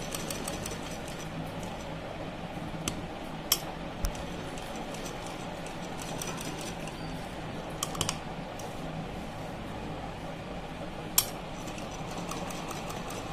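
Sewing machine running, stitching through fabric with a steady, rapid ticking; a few sharper clicks stand out, about three and a half, four, eight and eleven seconds in.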